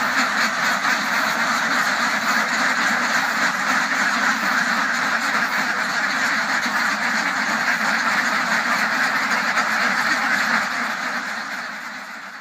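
A large flock of domestic ducks quacking all at once in a dense, continuous din. It fades out over the last two seconds or so.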